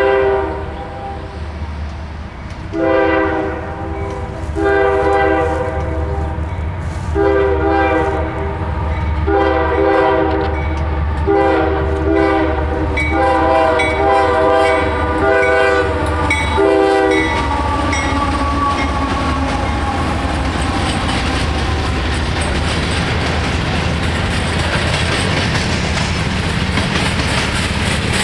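Freight train's diesel locomotive horn, several tones at once, gives a short blast and then a run of long blasts with brief breaks for a grade crossing, stopping about two-thirds of the way through. The Union Pacific-painted diesel locomotives and tank cars then pass close by with a steady engine rumble and wheels clicking over the rail joints.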